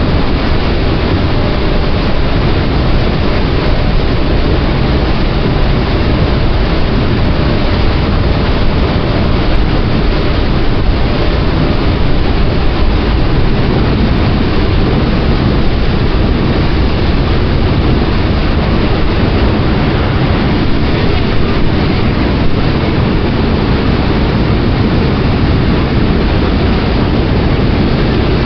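Ferry under way: a loud, steady rumble of the boat's engine mixed with the rush of water along the hull, with no change throughout.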